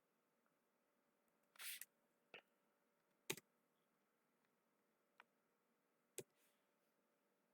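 Faint clicks of a computer mouse, about five scattered ones with the loudest a little past halfway, over near silence.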